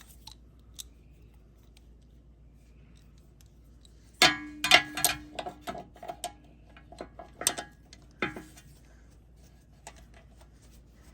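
Metal tools clinking and rattling at a motorcycle's drain bolt: a quick cluster of clicks with a short metallic ring about four seconds in, then two more clinks a few seconds later.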